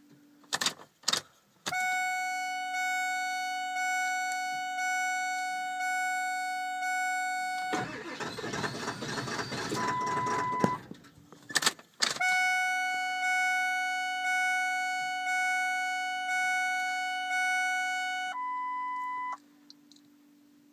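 Ford Power Stroke diesel pickup being started cold. The cab's warning chime dings steadily about once a second, and in between, a few seconds in the middle, the starter cranks the engine for about three seconds without it catching: a hard cold start. The chime then resumes, with a few clicks around the cranking.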